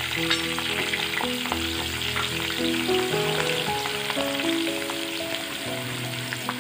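Chopped garlic and ginger sizzling as they fry in hot oil in a clay pot, stirred with a metal spoon that clicks now and then against the pot. A background melody of held notes plays underneath.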